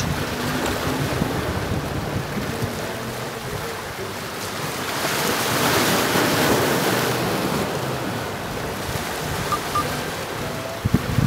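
Sea waves washing against the shore, swelling to a louder hiss about five seconds in and easing off again, with wind buffeting the microphone in low rumbles that gust sharply near the end.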